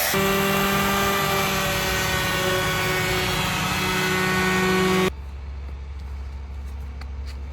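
Electric woodworking power tool running steadily at one pitch. About five seconds in it gives way suddenly to a quieter low hum with a few faint clicks.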